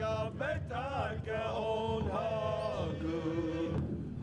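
A single voice singing a slow song, holding long notes and gliding between them.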